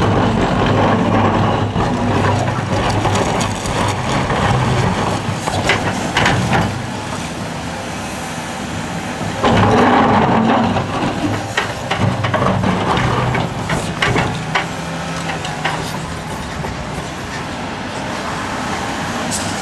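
Liebherr R974B crawler excavator's diesel engine working under load, surging louder at the start and again about halfway through as the bucket digs. Scattered knocks and clatter come from the steel bucket digging into rocky ground.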